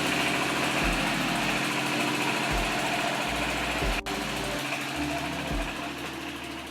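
Tofu factory machinery running loudly: a steady, dense mechanical din that fills the whole sound. There is a sudden click about four seconds in, after which the din continues slightly quieter.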